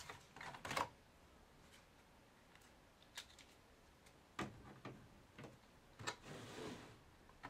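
Laptop optical disc drive being slid out of its bay and set down: a few light plastic clicks and knocks, the loudest in the first second, then a short scrape about six seconds in.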